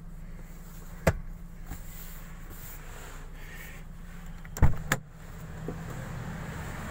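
Sharp clicks of a car's door handle and latch inside the cabin: a single click about a second in, then two loud clacks about a third of a second apart near the middle, over a steady low hum.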